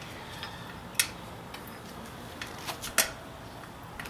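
A few sharp, light clicks and taps from handling the bicycle wheel and inner tube. The sharpest come about a second in and about three seconds in.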